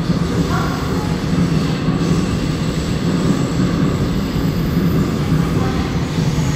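Seoul Subway Line 5 train running past fast as it enters an underground station: a loud, steady rumble of wheels and running gear.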